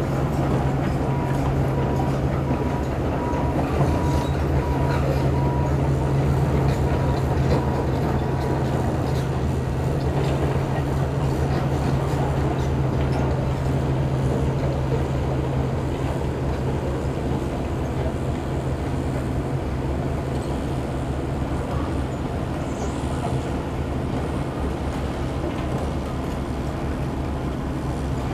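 Heavy diesel engines of working tracked excavators and a dump truck, a loud steady low drone. The deep engine hum is strongest in the first half and eases a little after about 16 seconds.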